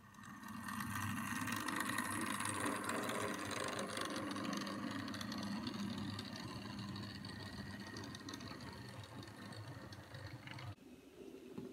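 OO gauge model train running on the track: a steady whirring hum from its small electric motor and gearing, starting suddenly, easing a little, and cutting off about a second before the end.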